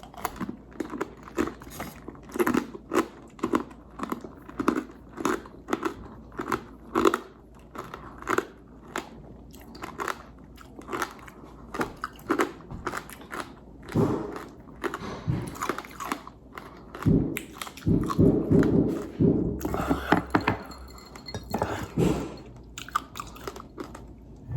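Someone biting and chewing tanghulu, crunching through its hard, glassy sugar shell again and again, with a louder, denser run of crunching in the second half.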